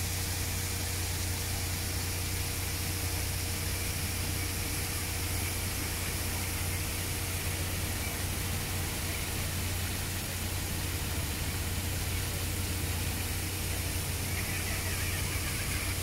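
Fountain water jets spraying and splashing down into a pool: a steady, even hiss, with a constant low rumble beneath it.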